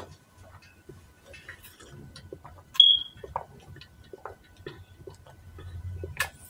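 A person sipping water through a straw from a large tumbler, with soft swallowing and mouth clicks, and one short high squeak about three seconds in.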